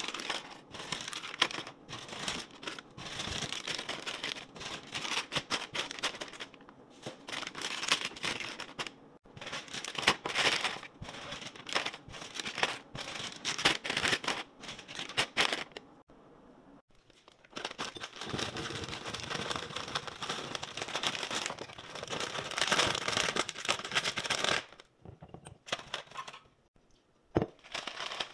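Crinkling plastic snack-cake wrappers and light plastic clatter as wrapped snacks are handled and set into clear plastic drawer bins: a dense run of rustles and clicks that pauses briefly about two-thirds of the way through and thins out near the end.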